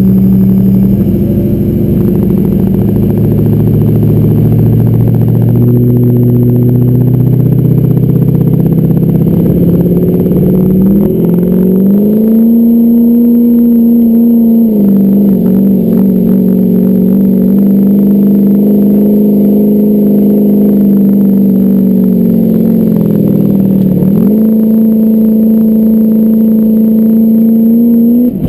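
Vehicle engine heard from inside the cab, run hard at high, fairly steady revs during a competition run. The pitch climbs about halfway through and drops back, then dips sharply a few seconds before the end and climbs again.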